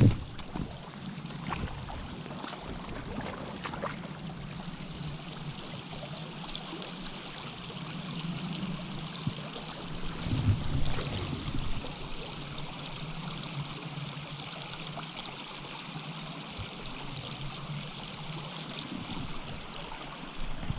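Small rocky mountain stream running steadily, an even rush of water. A sharp knock comes right at the start and a brief low thump about ten seconds in.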